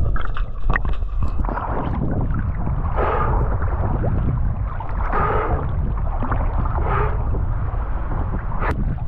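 Choppy seawater sloshing and gurgling around an action camera at the sea surface, with wind buffeting the microphone and a low rumble throughout; louder washes of water noise come about three, five and seven seconds in.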